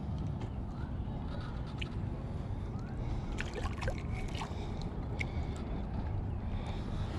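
Water sloshing and gurgling against a kayak's hull over a steady low rumble, with a few small clicks about halfway through.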